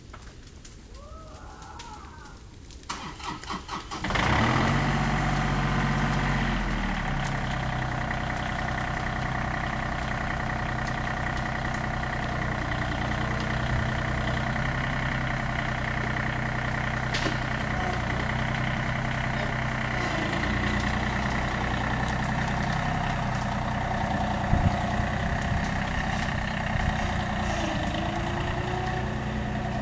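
A tractor engine is cranked for about a second and starts about four seconds in, then keeps running steadily.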